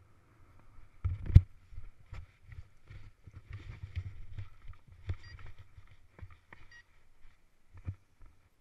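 A paraglider landing on grass: a hard thump about a second in as the pilot touches down, then a run of uneven knocks and rustling from feet, harness and the harness-mounted camera as the pilot runs out the landing and the wing comes down, with a few separate knocks near the end.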